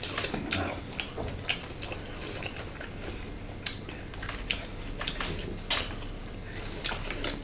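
Wet chewing and mouth sounds of people eating salad with their hands: irregular smacks and clicks.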